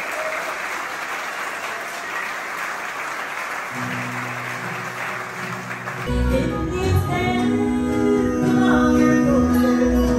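Audience applauding, then about six seconds in an acoustic bluegrass band with upright bass and guitars starts a song with singing.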